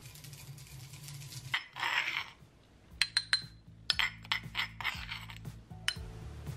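Granite mortar and pestle grinding sesame seeds, one gritty scrape between one and a half and two seconds in. Then a metal spoon clinks and scrapes against the stone mortar several times as the ground sesame is scooped out, over quiet background music.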